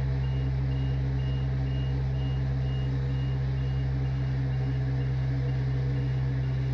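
A vehicle's reversing alarm beeping steadily about twice a second, over the steady low hum of a running engine.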